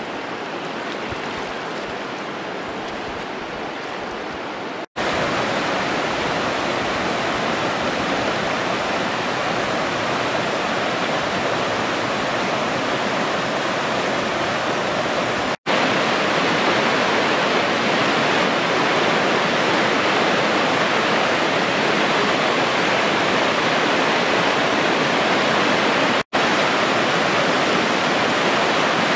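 Waterfall: a steady rush of falling water, heard in several clips joined with a brief drop-out at each cut; the first clip is a little quieter.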